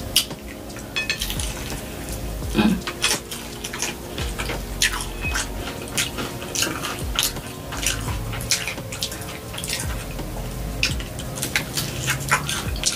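Close-up eating sounds: crisp fried chicken being torn, bitten and chewed, a run of irregular sharp crunches and clicks.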